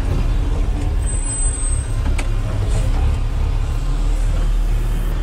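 Yard truck's diesel engine running with a steady low rumble while it moves a trailer. A thin high whistle sounds for about a second near the start, and a single sharp click comes a little after two seconds in.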